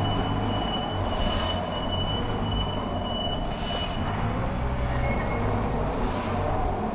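Tram running on its rails: a steady low rumble with a thin high whine that stops about four seconds in, and a brief hiss every two to three seconds.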